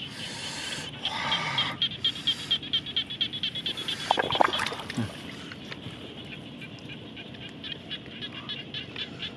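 Frogs calling from a flooded rice field: a fast rattling run of pulses for about two seconds, then scattered short clicking calls. Hands working in wet mud and water make short splashy bursts during the first two seconds.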